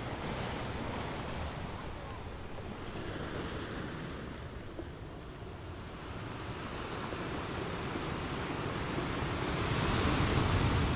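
Wind buffeting the microphone over the rush of the sea, a steady noise that grows louder near the end.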